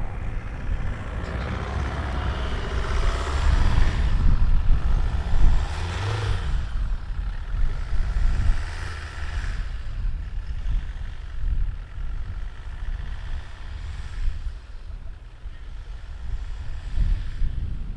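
A motor vehicle's engine running, with a steady low rumble that swells louder for a few seconds about a third of the way in.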